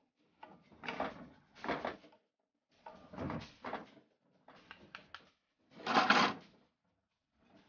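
Wooden spatula stirring and scraping chicken gizzards around a non-stick frying pan: about six short scraping strokes with silence between them, the last one the loudest.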